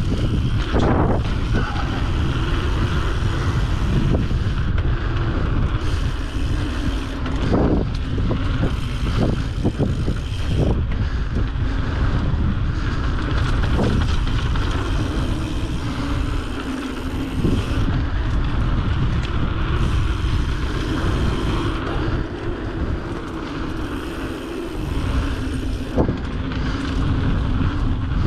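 Wind buffeting the microphone over a steady rumble, broken by frequent short knocks and rattles.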